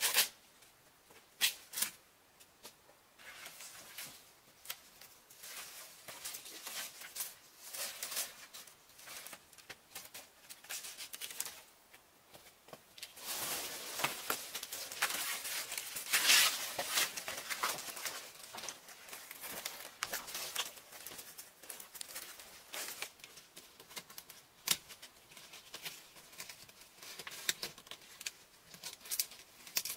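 Woven bamboo panels rustling and clicking as they are handled and fitted, with scattered sharp clicks and crackles. Brisk, louder rustling comes about halfway through, as a panel is swung into place.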